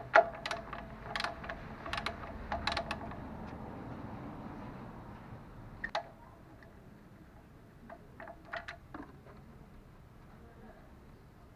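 Scattered metallic clicks and clinks, several with a short ringing tone, from a socket wrench working the oil pan drain plug of a Perodua Myvi. The sharpest click comes just after the start, most fall in the first three seconds, and a few more come near the end.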